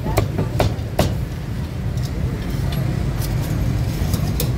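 Sharp knocks and clicks, three in quick succession in the first second and a few scattered ones later, over a steady low rumble of street traffic.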